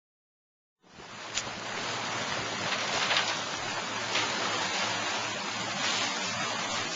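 Steady wind and water noise on a small fishing boat at sea, starting about a second in, with a few faint knocks.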